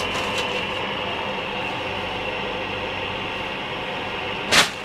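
Steady hum of a room air conditioner, with a brief, sharp noise near the end as a cloth item is handled.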